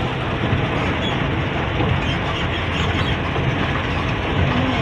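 Sugarcane truck driving along a road, heard from inside its cab: a steady low engine rumble mixed with road noise.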